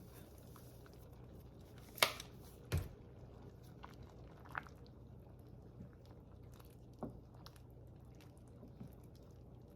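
Cooking sounds at a soup pot: scattered clicks and knocks of utensils, the loudest about two seconds in and a duller thud just before three seconds, with a few lighter taps later, over a steady low hum.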